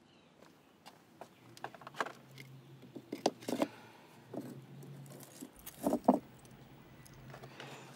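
Stones clicking, knocking and scraping as rocks are shifted by hand, in a string of short clatters with the loudest pair about six seconds in.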